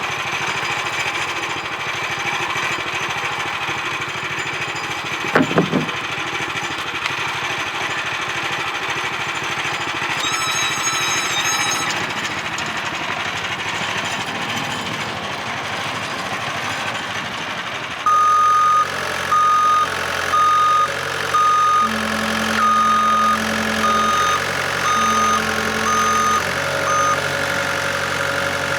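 A small gasoline engine running steadily, with a short knock about five seconds in. Past the middle, a series of about nine loud, evenly pitched beeps starts up over the engine, like a reversing alarm.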